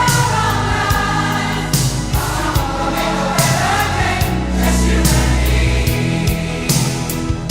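Many pop voices singing together as a choir over a band, with a steady drum beat.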